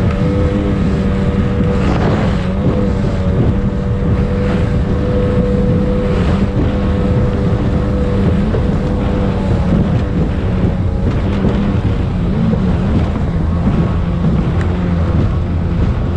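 Racing speedboat's engine running steadily at speed, its pitch holding fairly even, heard from on board with wind buffeting the microphone. A few short thuds and splashes from the hull hitting the chop.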